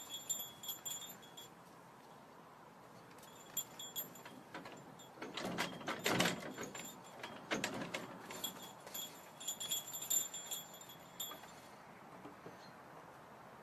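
A small bell jingling in short bursts, at the start, about three and a half seconds in, and again around nine to eleven seconds, as the kid goat hops about. A louder, noisier scuffle comes in the middle, from about five to eight seconds.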